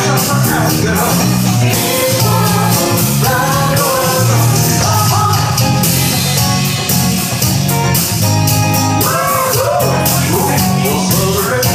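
A live rock band playing: electric bass, drum kit and electric guitar, with a woman singing the lead vocal over a steady beat.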